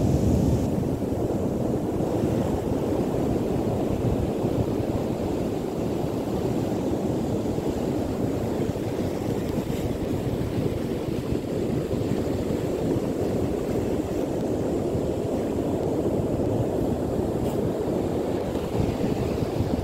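Wind blowing on the microphone at the beach, a steady low rumble with the wash of surf mixed into it.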